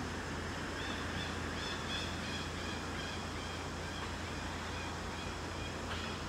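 Forest outdoor ambience: a steady low rumble and hiss, with a run of short high chirps from about a second in until about three and a half seconds, stepping down in pitch, and a single click near the end.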